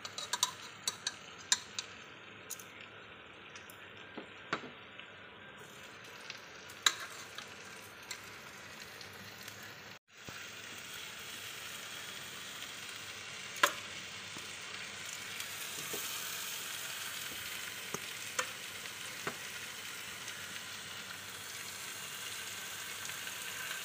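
Tomato-onion chicken gravy sizzling steadily in a pan on a gas flame. Now and then there is a sharp clink of metal tongs against the pots as cooked chicken pieces are moved in. After a short break about ten seconds in, the sizzle is a little louder.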